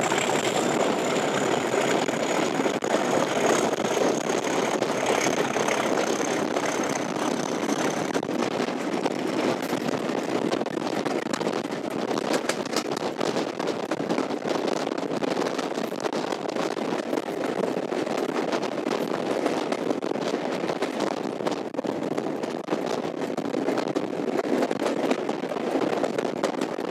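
Class 37 diesel-electric locomotive D6700, its English Electric V12 engine working under load as it hauls the train, heard from the coach behind with rushing air and wheel noise. A thin high whistle, typical of the class's turbocharger, sinks slightly and fades away about eight seconds in.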